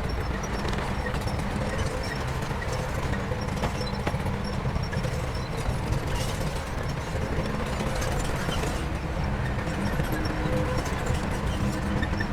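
Heavy diesel construction machinery running steadily: a low engine rumble with a faint tone and scattered light clanks.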